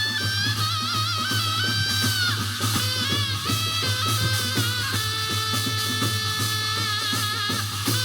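Korean shamanic ritual music: a wavering, sustained melodic line over steady drumming and percussion.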